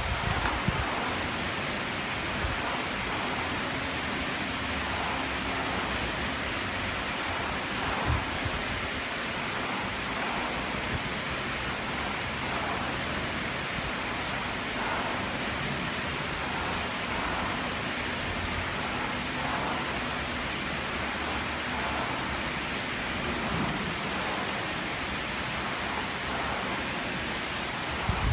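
Rowing machine's flywheel whirring steadily, swelling with each pull at about one stroke every two seconds.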